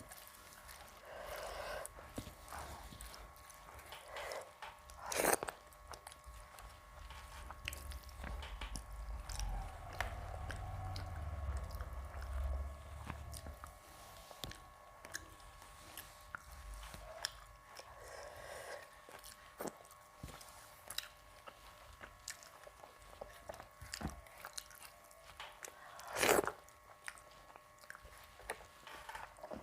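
A person eating close to the microphone: chewing and biting with many small wet mouth clicks, and two louder sharp crunches, one about five seconds in and one near the end.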